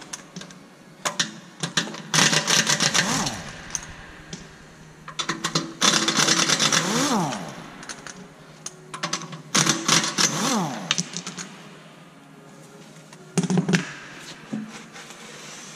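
Impact wrench hammering loose an Audi B8's wheel bolts: three bursts of rapid rattling blows, each ending in a falling whine as the tool spins down. A short knock follows near the end as the loosened wheel is handled.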